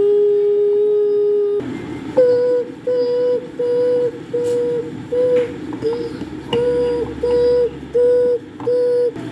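A person's voice humming an imitation of a phone tone: one long held note, then a steady run of short beeps, a little under two a second.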